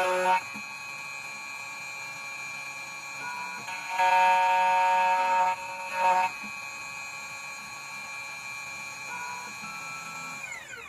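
2M2 Tank CNC key cutting machine's spindle motor running with a steady high whine as its 1.5 mm cutter mills an HU162T-10 key blank, louder for about a second and a half around four seconds in and briefly again near six seconds. Near the end the whine falls in pitch as the spindle winds down.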